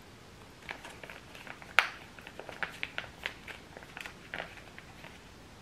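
Crinkling of a drink pouch being squeezed and sucked from, a faint run of short crackles with a sharper one about two seconds in.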